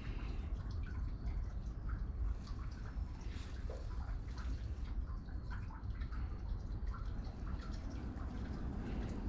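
Water dripping and trickling in small irregular patters over a steady low rumble.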